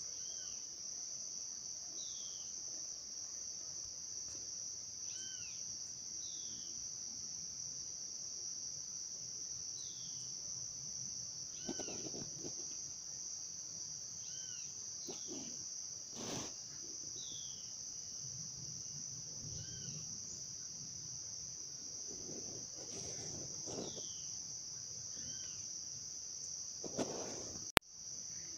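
Insects keep up a steady high-pitched buzz, with short chirps repeating every couple of seconds over it and a few soft rustles. A single sharp click near the end is the loudest sound.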